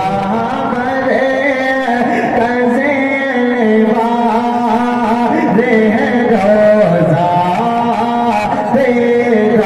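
A solo male voice singing a naat, an Urdu devotional poem, drawing out long notes that bend and waver in pitch with no clear words.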